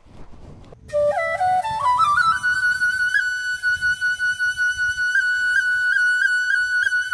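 Background music: a flute-like wind instrument plays a quick rising run of notes, then holds a long high note with small repeated ornaments. It stops abruptly near the end.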